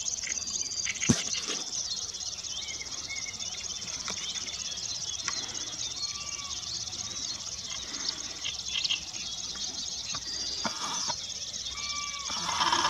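Meadow ambience: a steady high-pitched insect trill, with scattered short songbird chirps over it. A single sharp click comes about a second in, and a louder, lower sound swells near the end.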